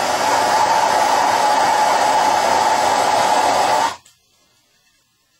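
Soldering torch flame hissing steadily while it heats a copper fitting on a shower valve, then shut off abruptly about four seconds in.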